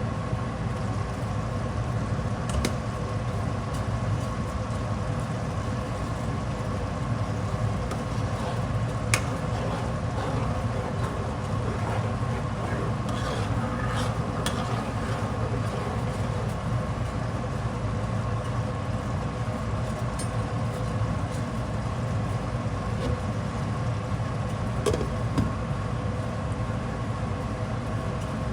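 Steady machine hum with a few steady tones in it, unchanged throughout, with a few faint clicks and taps.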